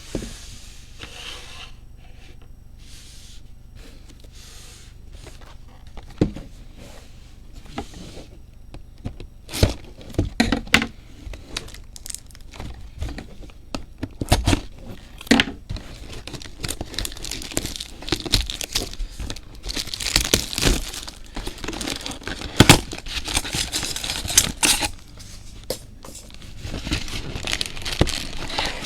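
A trading-card box being unwrapped and opened: plastic wrapping crinkling and tearing, with cardboard and packs knocking and rustling. Soft handling at first, then sharp knocks, then a long stretch of dense crinkling past the middle.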